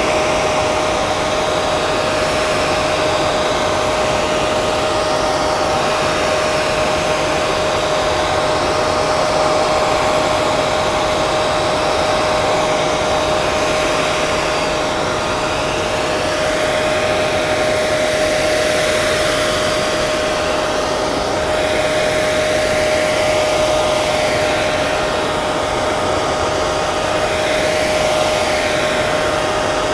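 Electric hair dryer running continuously: a steady rush of blown air with a constant motor whine.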